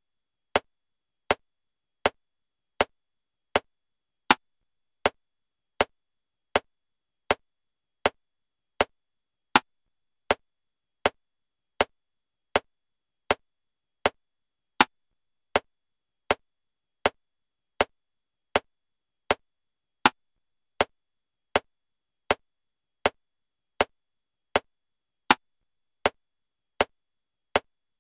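Metronome clicking at 80 beats per minute in 7/4 time: a short sharp click every three-quarters of a second, with a louder accented click on the first beat of every group of seven.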